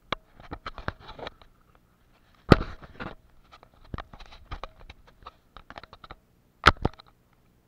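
Irregular close taps, knocks and scrapes right at the microphone, with two loud knocks about two and a half seconds in and near the end: the camera being jostled and shifted on a wooden table.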